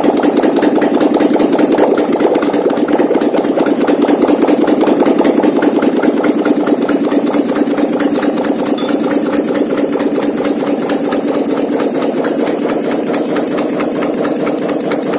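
800cc V-twin ATV engine, converted from fuel injection to a Harley-Davidson carburettor, idling steadily on a test run with fast, even firing pulses. It gets a little quieter in the last few seconds.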